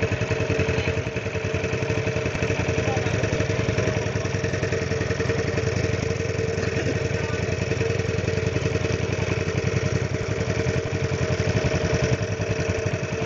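A small boat's engine running steadily under way, with an even chugging beat and a steady hum over it.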